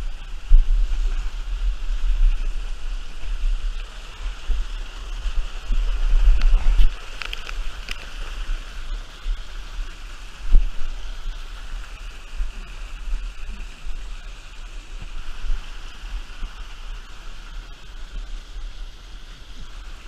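Steady rushing of water from a river cascade, with a heavy low rumble that comes and goes, strongest in the first seven seconds, and a single sharp knock about ten and a half seconds in.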